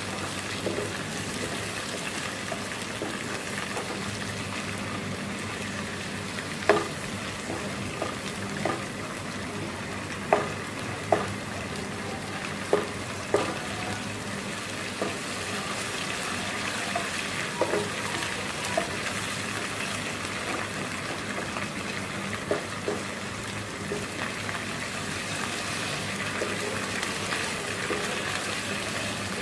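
Chopped onion frying in oil in a non-stick karahi, a steady sizzle. It is stirred with a spatula that knocks sharply against the pan now and then through the middle of the stretch.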